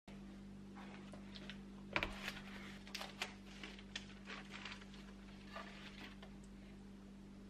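Light knocks and rustles as a wooden crate of strawberries is handled and shifted on a countertop, the sharpest knock about two seconds in, over a steady low hum.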